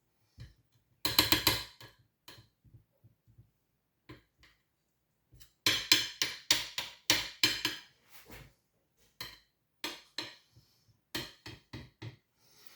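Serving utensils knocking and clinking on plates and a pot as food is dished out. There is a cluster of taps about a second in, a quick run of taps a little past the middle, and scattered single knocks after it.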